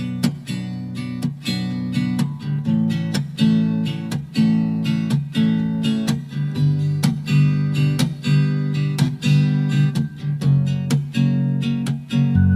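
Instrumental music: a strummed acoustic guitar playing a steady, regular rhythm with no singing.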